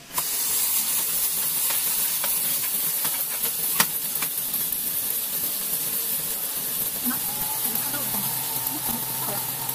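Green coffee beans charged into the hot drum of a Kaleido M10 Pro roaster: a sudden rush as the beans drop in, then a steady hissing rattle of the beans tumbling in the turning drum. A few sharp knocks sound in the first four seconds.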